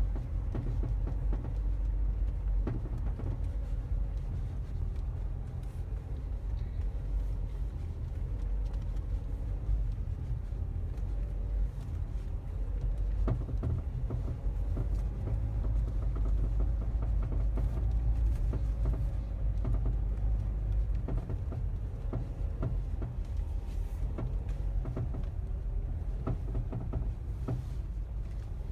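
Inside a moving Mazda 3 (BM): steady low road and engine rumble, with scattered light knocks and rattles from under the car. The owner suspects the knock, which appears only in cold weather, is the engine undertray (crankcase guard) knocking.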